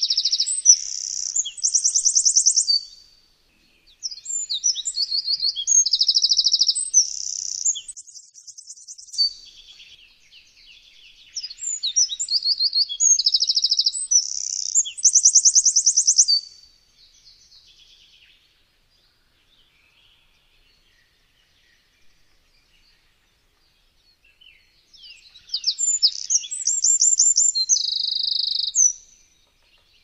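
Eurasian wren singing: loud, fast bursts of high trills and twittering notes, each phrase lasting a few seconds. There are four phrases with short pauses between them, and the last comes after a gap of about eight seconds.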